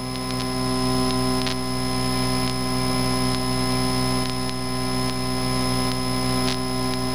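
Cessna 152's four-cylinder Lycoming engine and propeller running steadily in flight, heard inside the cabin as an even hum with several steady tones.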